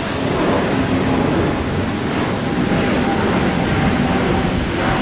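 Steady jet engine noise from a Singapore Airlines Airbus A350's Rolls-Royce Trent XWB turbofans as the airliner climbs out after takeoff.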